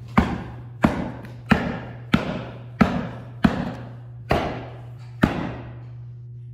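Eight sharp percussive hits, each ringing out briefly, about two-thirds of a second apart and spacing out toward the end, over a steady low hum.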